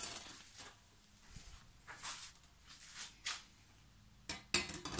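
Thin aluminium sheet being pressed and bent by hand over a wooden workbench edge: a few short scuffs and flexing noises, the loudest near the end.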